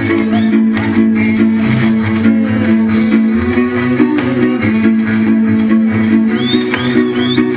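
Hungarian folk dance music played on string instruments: a tune over held low notes and rhythmic chord strokes with an even beat.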